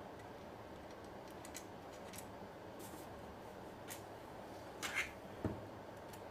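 Walther P22 pistol parts being handled and fitted together: a few light metallic clicks, then a louder scraping click about five seconds in and a sharp clack half a second later.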